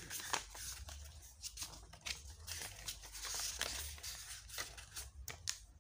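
Paper pages of a small printed user manual being flipped and handled, a run of quick, light rustles and flicks.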